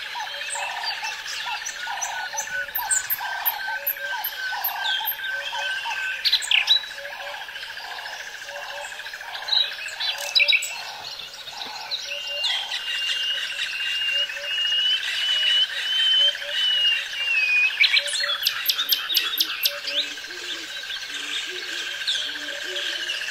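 Common nightingale singing varied phrases of quick repeated notes, trills and whistles. There is a long wavering whistle in the middle and a fast rattling run of notes near the end. Under the song, a steady background of pulsing calls comes about twice a second.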